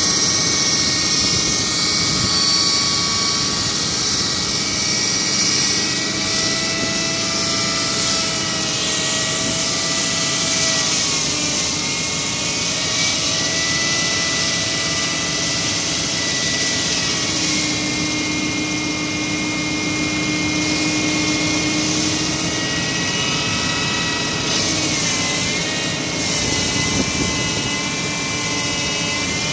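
LP32 hydraulic wall saw running as its circular blade cuts a reinforced concrete beam: a loud, steady machine sound with several whining tones that drift slowly up and down in pitch.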